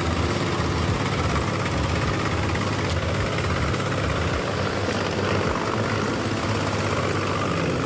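Heizohack HM 8-400 wood chipper running steadily under load, its engine droning beneath the noise of leafy branches being pulled in and chipped.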